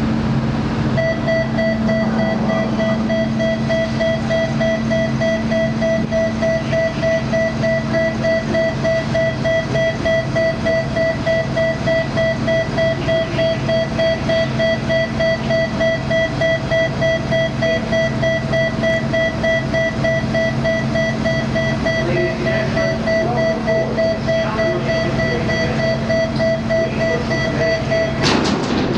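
Ferry's warning alarm beeping in a rapid, even pulse while the car-deck vehicle ramp is raised, over a steady low hum of ship machinery. The beeping starts about a second in and cuts off near the end as the ramp closes.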